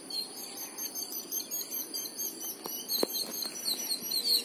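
Lakeside ambience: a steady high insect drone with birds chirping in quick short notes throughout, and a couple of faint clicks about three seconds in.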